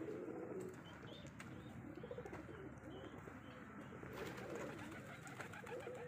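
Domestic pigeons cooing: low, wavering coos, one after another.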